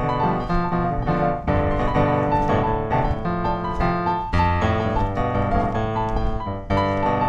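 Background piano music, notes played in a steady flowing pattern.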